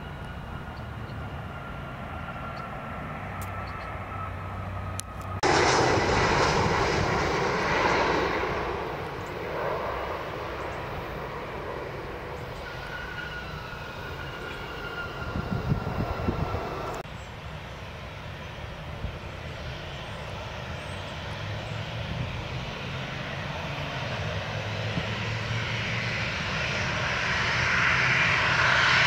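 Jet airliner engines, broken by abrupt changes where the clips cut: a sudden loud rush of engine noise about five seconds in, then steadier running. Near the end comes the swelling whine of a Southwest Boeing 737's twin jet engines as it taxis closer.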